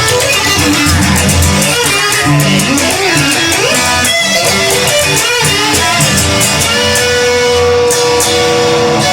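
Instrumental break in a song: guitar playing a melodic line over a steady beat, ending on a long held note.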